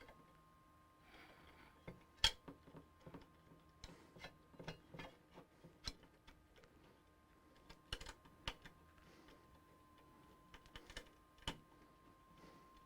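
Irregular small clicks and taps of hard-drive mounting hardware (bracket, screws, rubber grommets) being handled and fitted in a PC case, with a brief pause midway.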